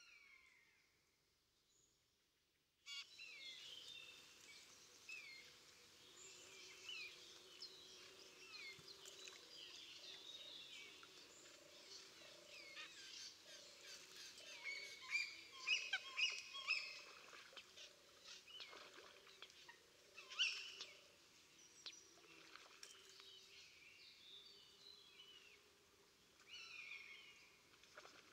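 Near silence, then about three seconds in a faint chorus of many birds starts abruptly, with overlapping chirps and calls and a lower run of repeated calls underneath.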